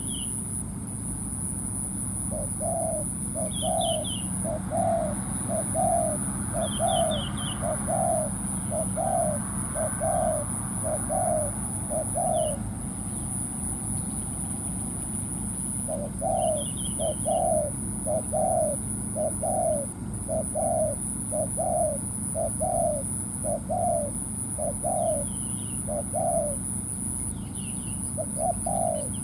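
Spotted dove cooing in runs of short, evenly spaced low coos, about one a second, with a pause of a few seconds between the two runs. Quick high chirps of small birds and a steady high-pitched whine sound over them.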